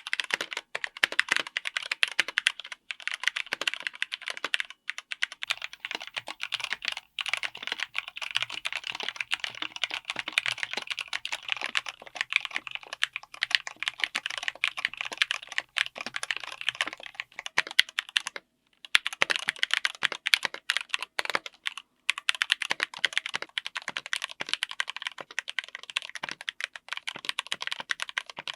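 Fast, continuous typing on a full mechanical keyboard fitted with linear switches: a dense stream of sharp key clacks and bottom-outs, broken by a few short pauses.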